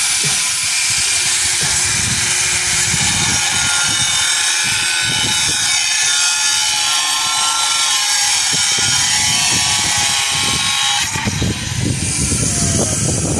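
A power cutting tool runs steadily through hard material, giving a loud, steady hissing whine. The whine eases about eleven seconds in.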